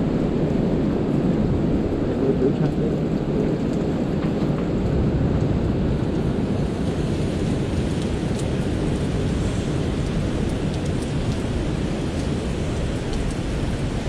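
Steady low rumbling noise of strong wind buffeting the microphone on the seashore.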